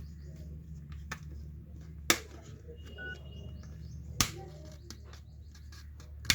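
Sharp clicks from the plastic back panel of a Realme C2 phone as it is pried open and its clips let go: three loud snaps about two seconds apart, with smaller ticks between, over a steady low hum.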